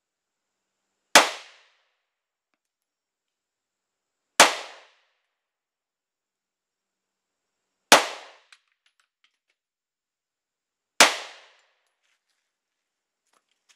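Four single 9mm pistol shots from a Polymer 80 Glock 19 build, fired slowly about three seconds apart, each a sharp crack dying away within about half a second.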